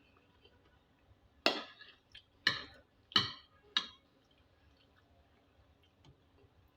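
A spoon clinking against a plate four times in quick succession, each strike sharp and fading quickly.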